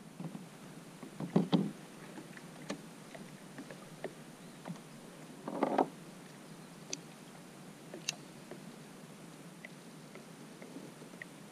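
Knocks and bumps against the hull of a plastic sit-on-top fishing kayak. There are two louder clusters, one about a second and a half in and one just before six seconds, with scattered small ticks between.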